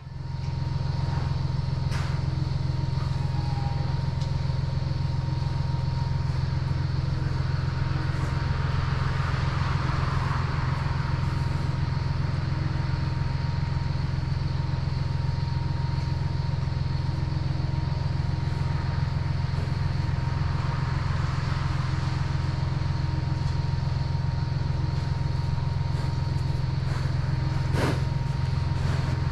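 A farm machine's engine running steadily at an even speed, with a faint steady whine above the engine note.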